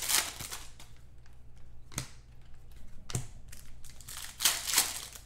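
Trading cards being handled and flipped through by hand: a few short snaps and slides of card against card, with a louder rustle near the end.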